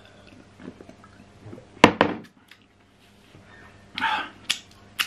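A man drinking water from a glass in a few quiet swallows, then a sharp knock just before two seconds in as the glass is set down. A short breathy sound about four seconds in, and a few small clicks near the end.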